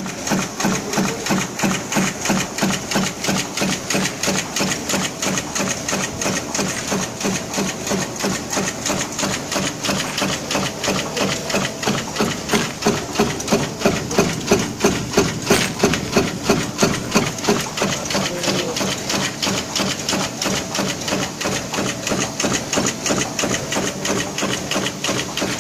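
High-speed punch press stamping metal buttons from coil strip in a progressive die, running continuously as a rapid, even clatter of strokes, a little louder around the middle.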